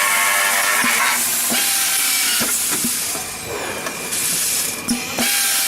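Machining centre for PVC window frames running, with a steady hiss. A high whine stops about a second in, and sharp clicks and knocks come every second or so.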